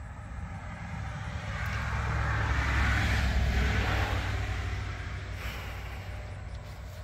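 A passing vehicle: a deep hum with a hiss that grows louder over the first few seconds, is loudest around the middle, then fades away.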